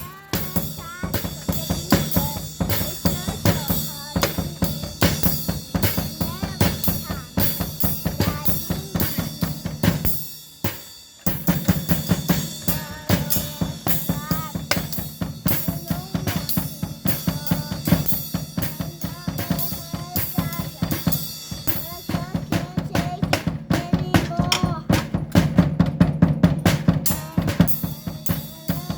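Drum kit played in a fast, steady beat of bass drum and snare strikes, stopping briefly about ten seconds in and then starting again.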